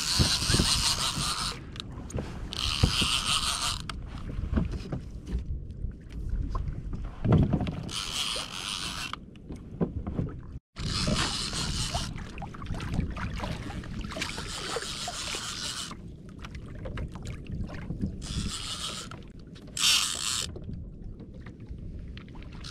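A conventional fishing reel being cranked in short spells to gain line on a hooked fish, its gears whirring in several separate bursts, over a steady rumble of wind and water on the microphone.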